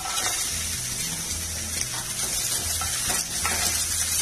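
Chopped onion sizzling as it hits hot oil in a nonstick pan, with a spatula scraping and stirring it a few times.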